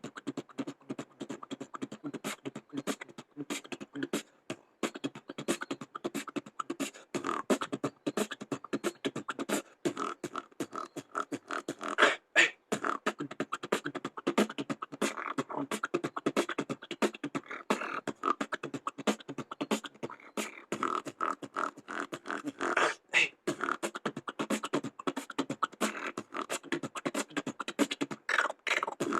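Solo beatboxing: a fast, continuous run of mouth-made drum clicks and hits with voiced bass and effect sounds, several strikes a second.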